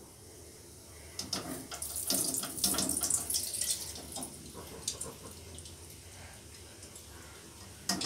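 Spoonfuls of ghee sizzling and spattering as they hit a very hot, smoking kadhai. The crackle is loudest from about a second in for a few seconds, then dies down, with a fresh sharp burst near the end as more ghee goes in.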